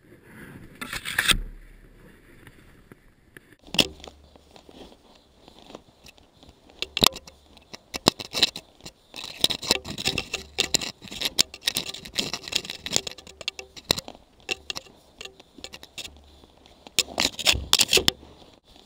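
Scraping and crunching of deep powder snow as a stuck snowbike is dug out by hand and boots, a run of irregular sharp crackles and scrapes with louder bursts about a second in and near the end.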